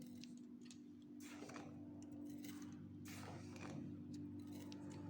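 Granulated sugar poured from a cup into a pot: a few short, faint pours over a low steady hum.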